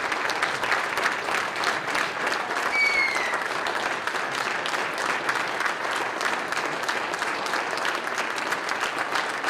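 Audience applauding steadily with dense hand-clapping, and a brief high-pitched call rising above it about three seconds in.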